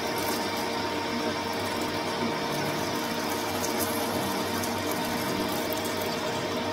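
Metal lathe running steadily, with a hum and several fixed whining tones, while its parting tool feeds through an aluminium bar to cut off a foot-peg blank.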